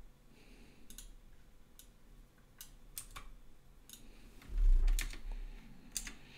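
Scattered sharp clicks of a computer mouse and keyboard as a Blender menu command is chosen, about eight in all. There is one dull low thump about four and a half seconds in.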